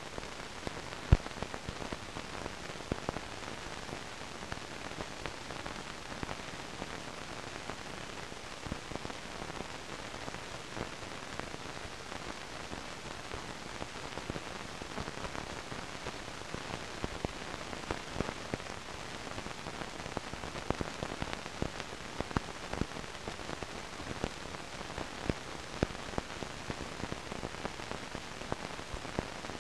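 Steady hiss dotted with frequent small crackles and pops: the surface noise of an archival recording. One sharp pop about a second in stands out above the rest.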